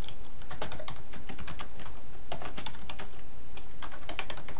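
Typing on a computer keyboard: an irregular run of quick key clicks, over a steady low hum.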